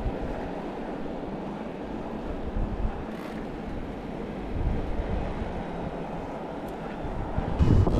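Wind rushing over the microphone of a moving e-bike rider, with steady rolling road noise. Stronger gusts buffet the microphone about halfway through and, hardest, near the end.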